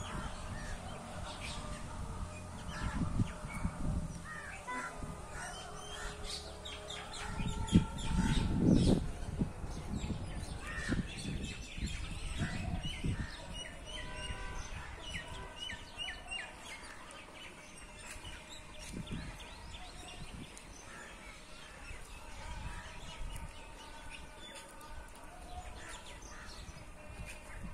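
Birds chirping, with crows cawing among them. Scattered short, high calls, with a loud dull thump about eight seconds in.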